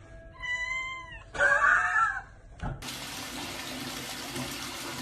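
A domestic cat meowing twice, the second call louder and longer. About three seconds in, a steady rush of running water from a tap starts abruptly.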